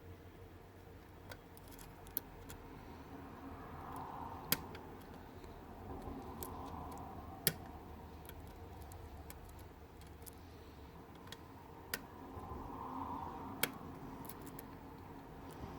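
Lock pick working the pins of a pin-tumbler challenge lock under light tension: a faint scraping with a handful of sharp, isolated metal clicks.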